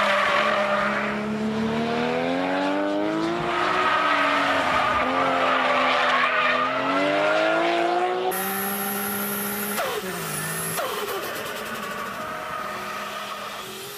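Nissan Skyline R34 GT-R's twin-turbo 2.6-litre inline-six on an aftermarket exhaust, driven hard on track: the engine note falls and rises several times as the driver lifts off and accelerates through corners. About eight seconds in it is heard from inside the cabin, running under load, with sharp drops in pitch around ten seconds in as it shifts, then fading out at the end.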